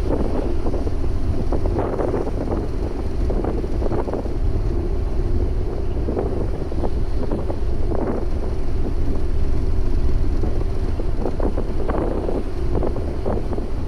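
Wind buffeting the microphone: a steady heavy rumble with uneven gusty rustling throughout.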